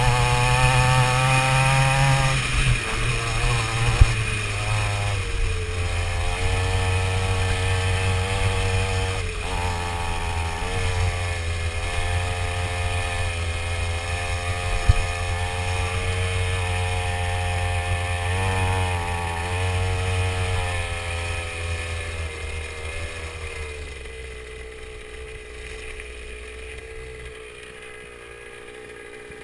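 49cc two-stroke mini motocross bike engine running at varying revs, climbing in the first two seconds, then rising and falling, with two sharp knocks about four and fifteen seconds in. The engine sound fades over the last several seconds.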